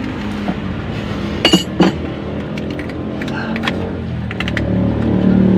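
Two sharp metal clinks about a second and a half in, then a few lighter ticks: a 22 mm wrench against the engine's pulley bolt as the engine is turned by hand to line up the timing-belt marks. A steady low hum runs underneath.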